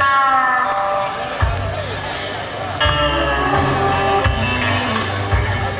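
Live rock band playing, led by electric guitars, with low-end beats underneath, as heard from the audience.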